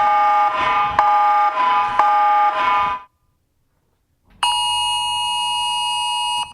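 Emergency alert tones played back. A pulsing electronic alarm, steady tones with a sharp click about once a second, stops about three seconds in. After a second of silence, a steady multi-pitched alert tone sounds for about two seconds and cuts off.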